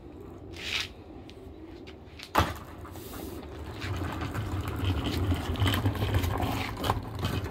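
Small casters of a wooden furniture dolly rolling over asphalt under a heavy flat-packed cabinet box, a low rumble that starts about four seconds in. A single sharp knock comes about two seconds in.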